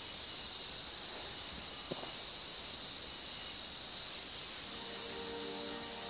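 Steady high-pitched drone of rainforest insects. Background music comes in about three-quarters of the way through.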